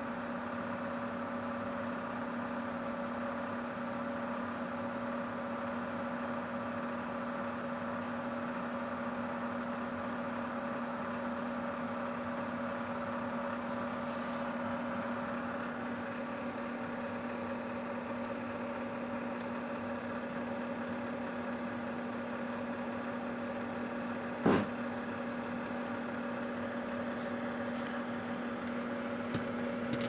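Microwave oven running with a steady electrical hum. A single sharp click sounds about twenty-four seconds in.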